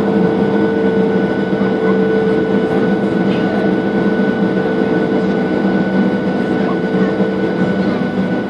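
Cabin noise inside a Boeing 737-700 on the ground, heard over the wing: the CFM56-7B turbofan engines run with a steady hum and a steady whine, easing slightly near the end.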